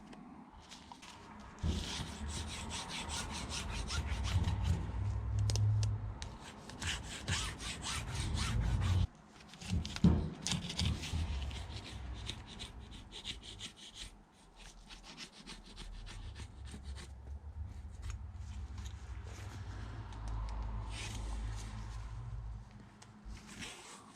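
A homemade groove cleaner scraped repeatedly along the groove of a chainsaw bar, a gritty scratching as packed sawdust and dirt are pushed out. A low rumble runs under much of it, and there is a sharp knock about ten seconds in.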